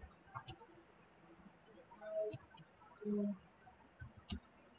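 Computer keyboard keystrokes typing a short phrase, in three quick clusters of light clicks. A brief low hum comes about three seconds in.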